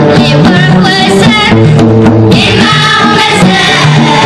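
Children's vocal group singing an Amazigh song in chorus, with banjo and hand-drum accompaniment.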